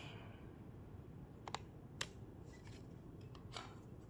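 Near quiet with a few faint, sharp clicks from a foam dart blaster being handled, the sharpest about two seconds in.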